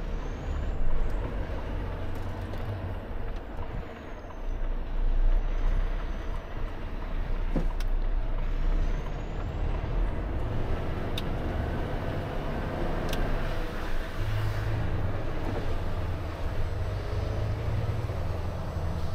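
Volvo FH truck heard from inside the cab while driving: steady low diesel engine rumble and road noise, with a few short sharp clicks around the middle.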